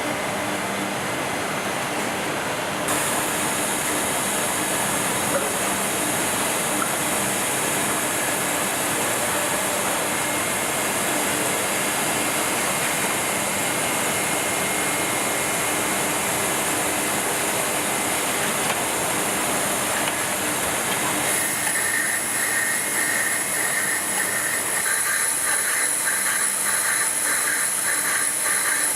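NC lathe running through a machining cycle: steady machine noise with a hiss that comes in about three seconds in. About twenty seconds in the sound changes, adding steady whining tones and a fast flutter.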